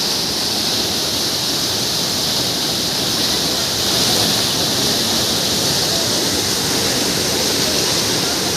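Floodwater rushing through a river barrage's gates, a steady, unbroken rush of falling and churning water.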